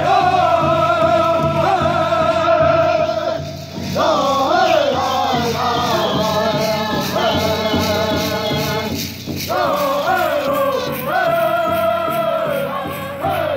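Powwow drum group singing in unison over a large bass drum struck in a steady, even beat. The song is held on long, high notes, with two short breaks between phrases, about three and a half and nine seconds in.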